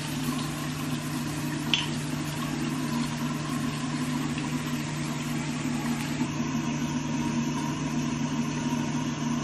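A steady low mechanical hum, with a single short click about two seconds in.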